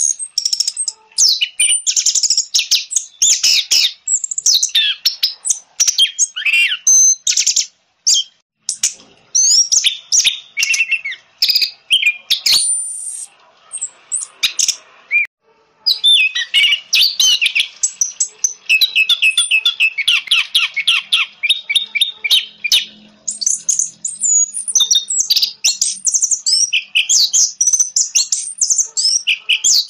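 Orange-headed thrush singing: a loud, fast, varied stream of whistled and chirped phrases and quick trilled runs, with a short pause about halfway through.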